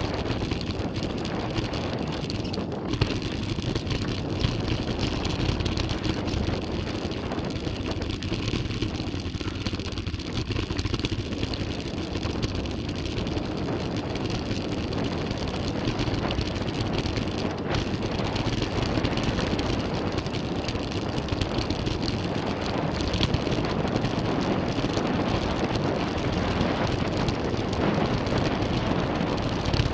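Mountain bike descending a dirt trail: a steady rush of tyres over the ground and wind on the microphone, with constant small clatters and knocks from the bike over bumps.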